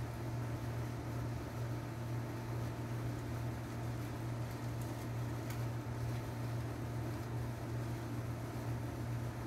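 A steady low machine hum with a light hiss, unchanging throughout, and a couple of faint ticks midway.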